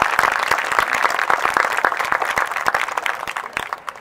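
Crowd applauding with dense, steady clapping that thins and dies away near the end.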